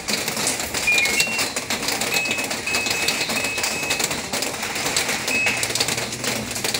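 Samsung top-load washing machine's control panel beeping as its buttons are pressed: a few short beeps of changing pitch about a second in, three longer beeps between two and four seconds, and one more short beep near the end. Under the beeps is a steady rattling hiss.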